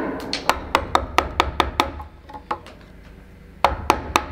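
Wooden carver's mallet striking a carving gouge into a block of wood: a quick run of sharp knocks about four a second, a pause of about a second and a half, then three more knocks near the end.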